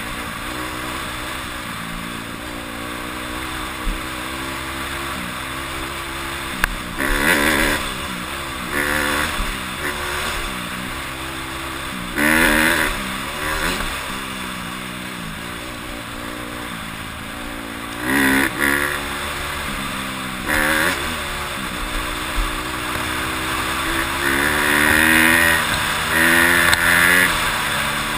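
Honda CRF150R dirt bike's four-stroke single-cylinder engine revving up and down while riding, with repeated short bursts of throttle; the longest and loudest come near the end.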